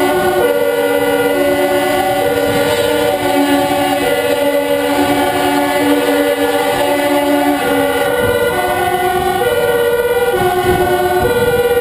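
Several two-tone emergency sirens sounding at once, each switching between a high and a low note about twice a second and out of step with one another, over the engine and road noise of a moving fire engine.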